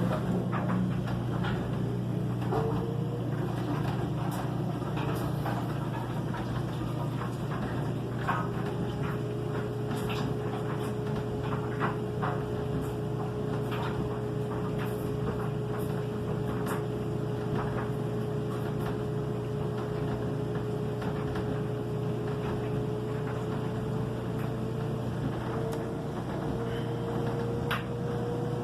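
LG front-load washing machine running, its motor whine rising slowly in pitch as the drum picks up speed, over a steady hum. Scattered clicks and knocks come from the drum and laundry.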